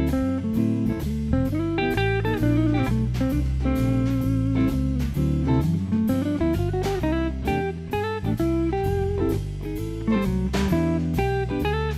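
Background music: a guitar-led instrumental over a bass line and a steady beat, with a guitar note sliding upward near the middle.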